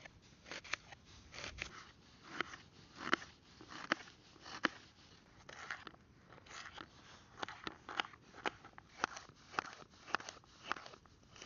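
Small wood campfire crackling, with irregular sharp pops and snaps about once or twice a second.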